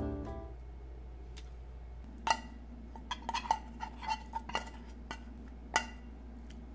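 A metal spoon clinking and scraping against the inside of an open tuna can as the tuna is scooped out. The sharp metallic taps carry a brief ring; they are loudest about two seconds in and again near the end, with a quicker run of clinks between.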